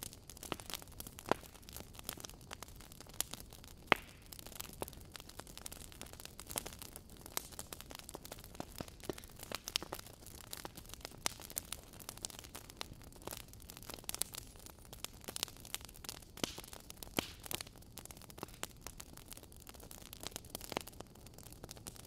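Wood logs burning in a fireplace, crackling with a dense run of irregular sharp pops and snaps over a steady low hiss; one snap about four seconds in stands out as the loudest.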